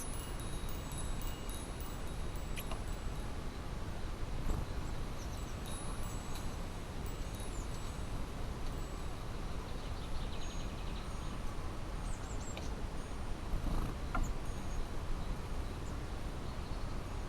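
Wind chime ringing lightly now and then, thin high tones and small ticks over a steady low rumble.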